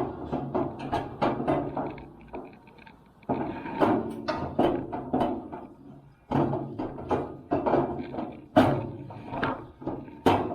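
Weber Spirit grill parts being handled during assembly: a run of knocks, clacks and rattles as pieces are fitted, with brief lulls and a few harder knocks near the end.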